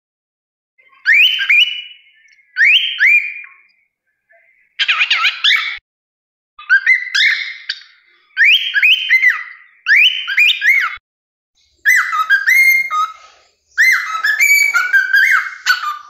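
Cockatiel whistling its song: a string of short whistled phrases that sweep up and down in pitch, about eight of them with brief gaps between, starting about a second in.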